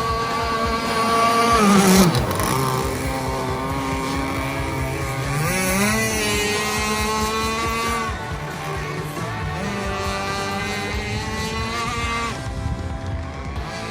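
Gas-powered RC boat's two-stroke engine running at high revs; the pitch drops as the throttle comes off about two seconds in, then climbs back to a steady high pitch around five and a half seconds in.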